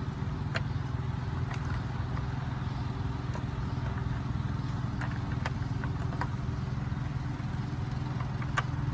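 A steady low motor hum in the background, with a few light clicks and taps as parts are handled on a plastic LS intake manifold.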